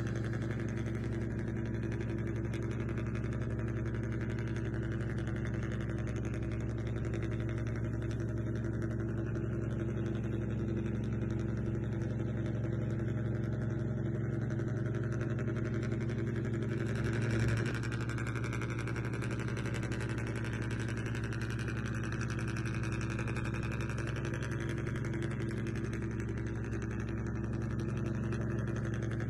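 Steady low hum made of several even tones, with a brief swell about 17 seconds in.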